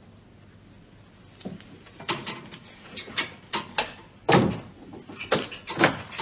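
A door being worked: a run of irregular knocks and bangs starting about a second and a half in, the loudest a heavy thud about four seconds in.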